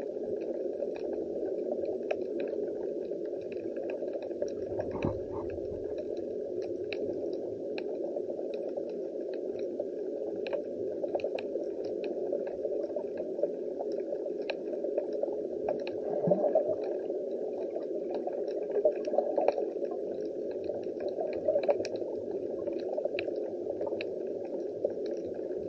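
Underwater ambience picked up by a submerged camera microphone: a steady, muffled rush with many scattered faint clicks and crackles, and a low thump about five seconds in.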